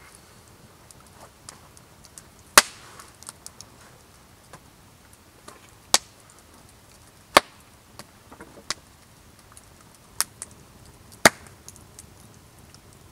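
A few sharp single knocks and taps of tools and wood on a wooden bench, about five spread out with quiet between them. The loudest come about two and a half seconds in and just past the middle.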